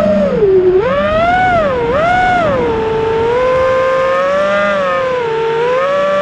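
FPV quadcopter's brushless motors whining in flight, the pitch swelling and falling with the throttle: two quick surges in the first couple of seconds, then a steadier hover-like tone that climbs again near the end.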